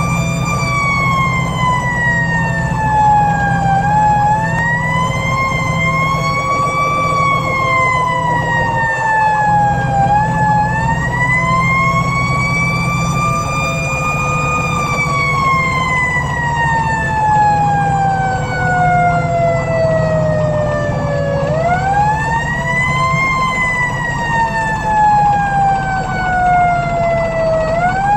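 Federal Q2B mechanical siren on a fire engine, repeatedly wound up and left to coast down in slow rising and falling wails, with one long coast-down through the middle, heard from inside the cab over the truck's engine.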